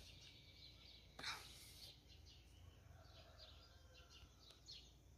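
Faint outdoor quiet with small birds chirping at a distance now and then, and a brief rustle about a second in.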